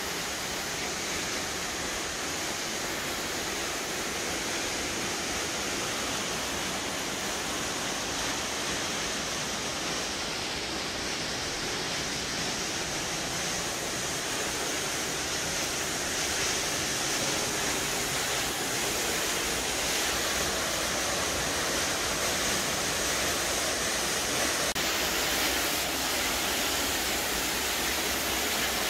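Steady rush of a waterfall's falling water, growing slightly louder over the second half.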